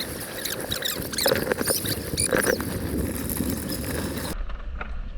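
River water rushing and splashing, with many small spattering splashes against a steady hiss of white water. About four seconds in, the sound changes suddenly to a duller, lower rumble.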